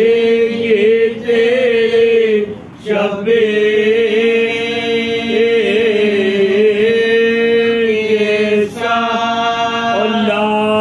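Men's voices chanting a Muharram lament without instruments, in long held melodic notes that waver slowly. There are short breaks for breath about a second in, near three seconds and near nine seconds.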